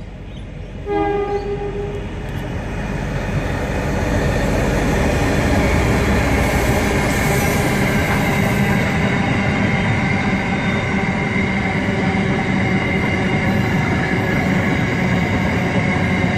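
Two diesel freight locomotives give a short horn blast, about a second long, about a second in. Then the train passes close by: engine rumble and the rolling of wheels on rail grow louder and hold steady as the flat wagons go past.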